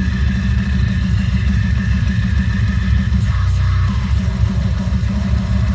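Deathcore metal song playing loud, with a dense, heavy low end and rapid pulsing, distorted guitar and drums.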